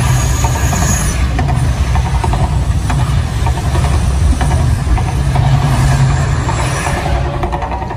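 Mirage volcano eruption show: a loud, steady deep rumble with the rushing hiss of gas fire jets bursting from the volcano's top.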